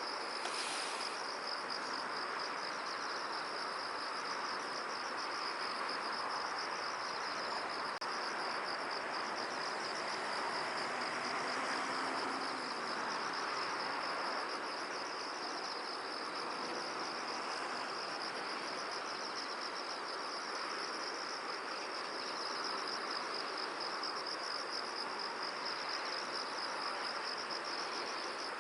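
Insects trilling steadily in a continuous, finely pulsing high chorus over a soft, even hiss of wind.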